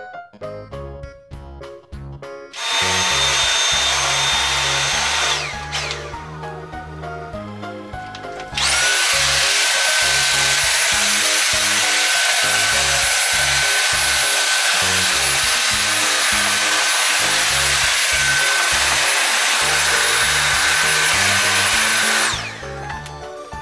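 Dyson cordless stick vacuum cleaner running with a high steady whine. A short run starts about three seconds in and winds down a few seconds later; a longer run starts about nine seconds in and cuts off near the end. Light background music plays underneath.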